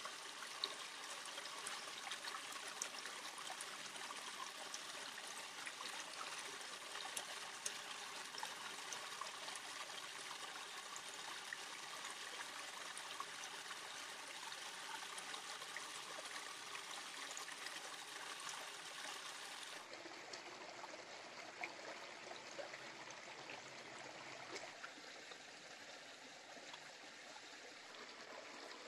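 Shallow stream water running over rocks: a soft, even rush with a few faint sharp clicks. It turns slightly quieter and duller about two-thirds through.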